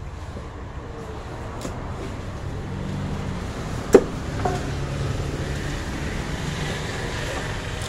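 A large knife blade knocks sharply on a wooden chopping block while fish is cut, once loudly about four seconds in with a brief ring, then a smaller knock just after. Underneath is a steady low rumble of traffic that grows slightly louder.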